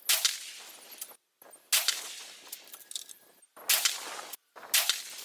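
Four shots from a Sako single-shot bench rest rifle chambered in 6 PPC USA, each a sharp report that dies away over about a second, spaced one to two seconds apart.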